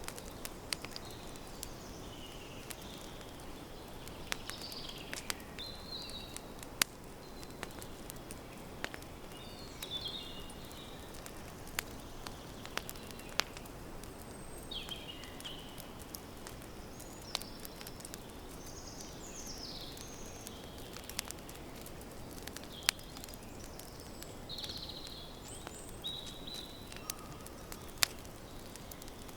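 Campfire crackling: frequent sharp pops and snaps over a steady hiss of burning wood, with birds chirping in the background.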